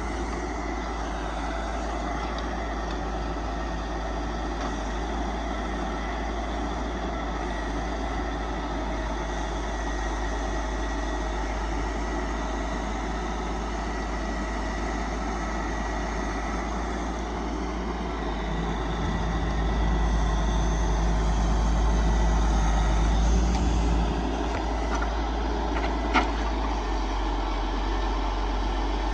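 Diesel engine of a Kenworth self-loading logging truck running steadily while its loader works, growing louder for about five seconds past the middle before settling back. A single sharp knock comes near the end.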